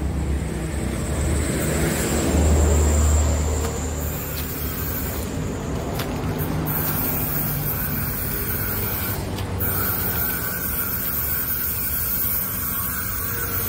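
Steady low engine drone from an approaching diesel locomotive, mixed with road traffic noise. A louder low rumble swells and fades about two to four seconds in.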